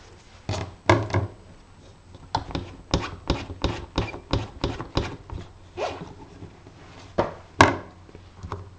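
Quick light taps and knocks as an inked rubber stamp is cleaned, about three a second through the middle, with a few louder knocks near the start and near the end.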